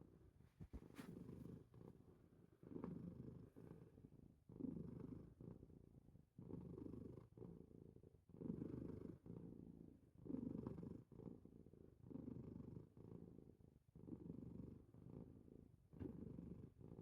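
Faint, low, rhythmic breathing noise from a drowsy pet, swelling with each breath about every two seconds; the owner takes it for snoring.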